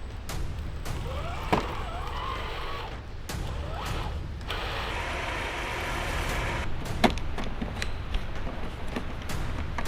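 RGT Land Commander RC crawler's electric motor and gears whining, rising and falling in pitch as it is throttled on and off, with a few sharp knocks.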